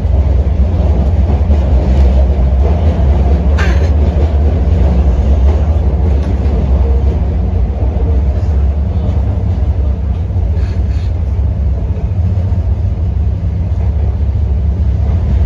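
Inside the carriage of an MTR CNR Changchun electric multiple unit running through the tunnel: a loud, steady low rumble of wheels on rail and traction equipment, with one brief sharp noise about three and a half seconds in.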